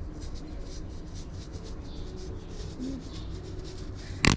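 Paintbrush rubbing charcoal wash onto carved wood in many short, quick strokes, a soft scratchy rubbing. A single sharp knock just before the end.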